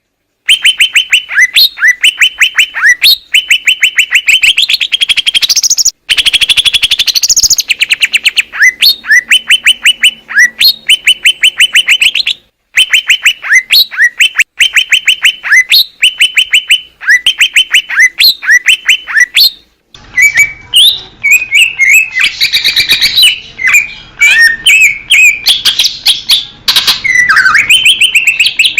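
Green leafbird (cucak ijo) singing loudly: fast runs of sharp repeated chirps, breaking off abruptly a few times, turning to a more varied warbling song in the last third.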